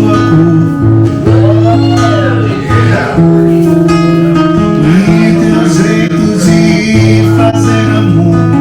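Live music: a guitar playing over sustained bass notes, with a singer's voice.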